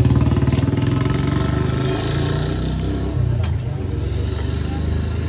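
A vehicle engine running close by, its pulsing beat fading over the first second or two and leaving a steady low street hum.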